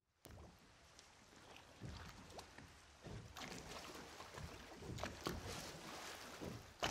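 Sounds of a small boat on the water: water slapping against the hull, with scattered knocks and clicks and a sharper knock near the end.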